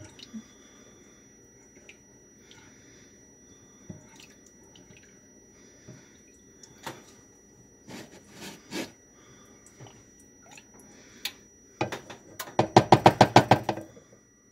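A silicone spatula stirring and scraping a thickening cream sauce in an enamel pot, faint scattered clicks and scrapes. Near the end a loud quick rattle of about a dozen clicks as the pot lid is set on.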